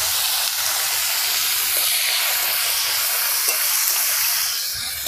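Chopped tomatoes sizzling in hot mustard oil in a metal kadai, a steady hiss from the wet tomatoes just added to the oil, as a spatula stirs them. The sizzle eases slightly near the end.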